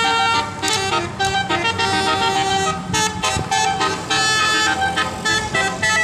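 Bus 'basuri' telolet multi-tone air horn playing a melody: several horn tones sound together and step from note to note.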